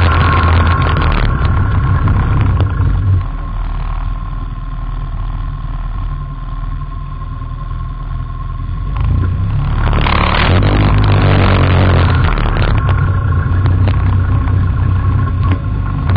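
Quad bike (ATV) engine running along a dirt trail. It eases off about three seconds in and picks up again, louder, about ten seconds in.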